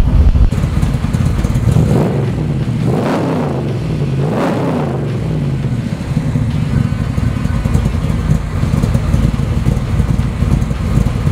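392 cubic-inch stroker V8 of a Superformance Cobra replica, running through its side-exit exhaust. It is blipped twice, peaking about three and four and a half seconds in, then settles into a steady idle.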